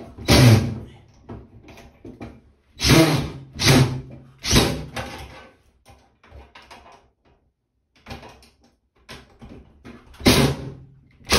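DeWalt cordless drill/driver driving screws through a bathroom exhaust fan's sheet-metal housing into the ceiling, in short loud bursts: four in the first five seconds, then two more near the end.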